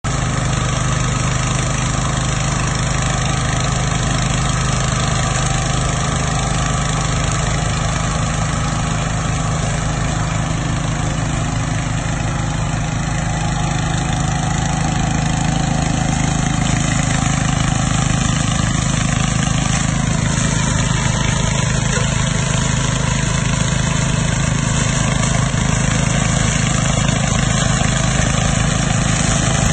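Small engine of a walk-behind lawn mower running steadily, growing slightly louder and changing pitch a little about two-thirds of the way through.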